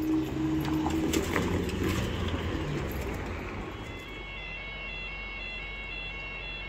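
Road traffic moving off over the level crossing, with a steady hum that stops about a second in. From about four seconds in, the crossing's audible warning alarm sounds steady high electronic tones as the amber light comes on for the next barrier lowering.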